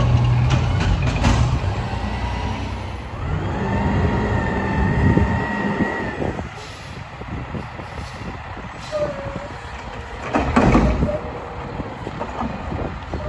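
Autocar WXLL garbage truck with a McNeilus front-loader body and Curotto Can arm at work: diesel engine running, with a whine that rises and then holds for a few seconds, and a loud clatter about ten seconds in.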